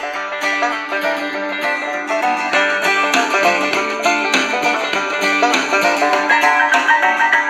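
Music with quick plucked-string notes playing through the Tecsun PL-450 portable radio's speaker, received on FM from a low-power MP3 player transmitter.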